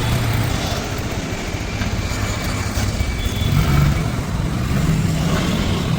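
Motor vehicle engine running with road noise, its low pitch rising and falling.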